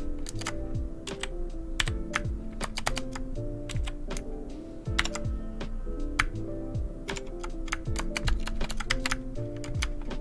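Keys of a 60% mechanical keyboard being pressed in quick, irregular clicks, over background music with a sliding bass line.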